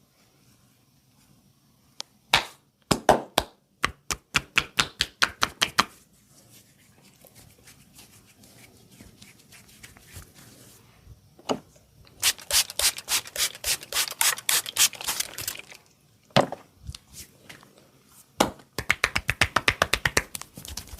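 Hands striking a body in a percussive massage: sharp slaps and chops in quick runs of several a second, with single harder smacks between the runs and soft rubbing in the pauses.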